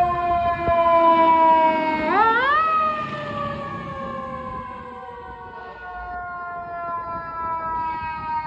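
Fire truck's siren wailing, a tone that falls slowly, is pushed quickly back up in pitch about two seconds in, then winds down again, fading somewhat in the middle as the truck passes. The quick rise and long coast-down is the pattern of a mechanical siren.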